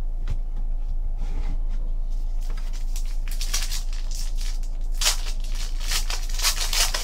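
Foil wrapper of a Panini Totally Certified basketball card pack crinkling and tearing as it is opened by hand, starting a couple of seconds in, over a steady low electrical hum.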